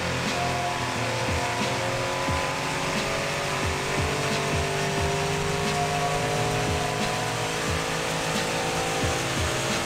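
Audi RS6's twin-turbo V8 running under steady load on a four-wheel-drive dyno, its pitch drifting slowly, with a low thump about twice a second underneath.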